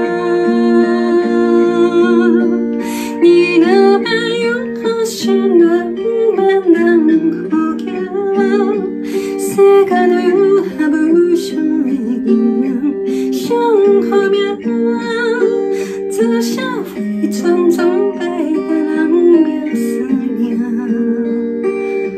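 A woman singing a slow Taiwanese-language ballad over an instrumental backing track. The accompaniment plays alone for the first two or three seconds before her voice comes in, with a wavering vibrato on held notes.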